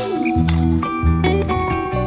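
Background music: an instrumental passage of a pop song with guitar and bass.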